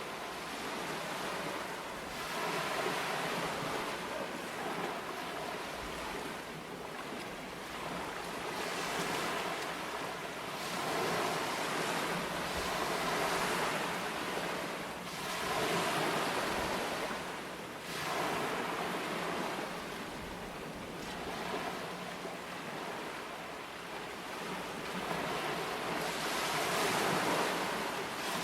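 Ocean surf: waves breaking and washing in, the rushing noise swelling and fading again every few seconds.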